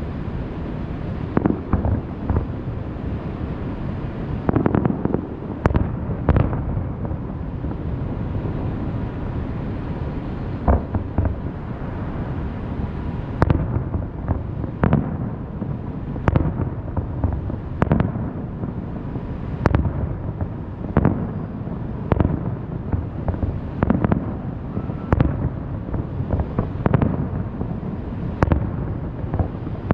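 Aerial fireworks bursting one after another, a sharp bang every second or two and sometimes two in quick succession, over a steady low rumble.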